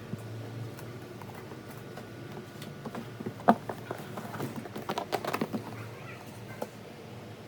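Handling noises while the air fryer and its packaging are unboxed: a single sharp knock about three and a half seconds in, then a quick run of small clicks and taps, over a low steady hum.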